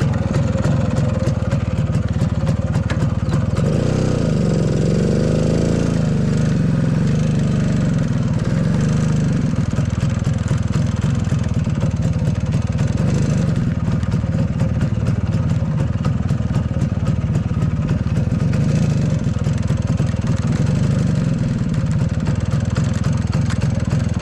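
1994 Yezdi Roadking's 250 cc two-stroke single-cylinder engine running as the motorcycle is ridden, with the revs rising and falling about four to six seconds in.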